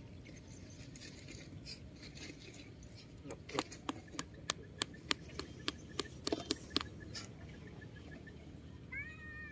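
A run of about a dozen sharp taps, roughly three a second, in the middle; then, near the end, a short high squeal from a baby monkey, rising at the start.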